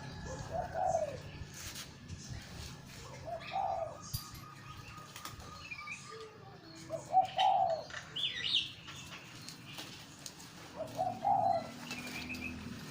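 A dove cooing: a short low phrase repeated four times, about every three to four seconds. Smaller songbirds chirp more faintly and higher-pitched between the coos.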